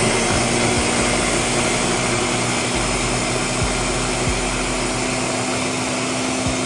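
Ninja countertop blender running at full speed, puréeing a thick soup of roasted butternut squash, peppers and coconut cream: a loud, steady whir with a steady hum beneath it.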